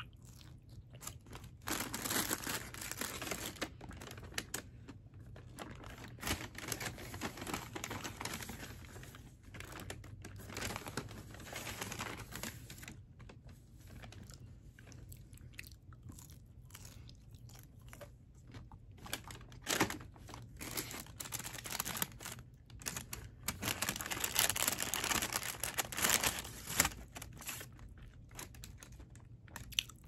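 A person chewing crunchy breaded, fried food with the mouth close to the microphone: loud crisp crunching in long bouts for roughly the first dozen seconds and again for a few seconds past the middle, with softer chewing in between.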